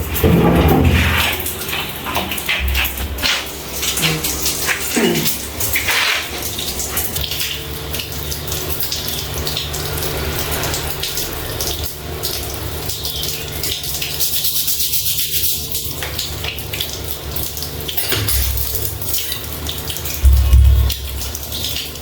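Water running steadily from a tap or pipe in the plumbing system, with a few heavy low thumps, one near 3 seconds in and two near the end.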